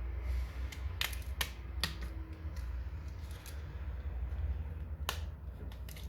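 A few sharp, scattered clicks and taps, about four in all, over a steady low hum.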